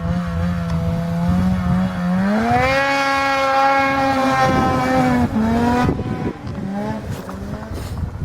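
Ski-Doo XM 800 E-Tec snowmobile's two-stroke twin running through an HPS aftermarket silencer: steady at first, then revved up about two seconds in and held at the higher pitch for about three seconds, then let off and blipped at lower revs near the end.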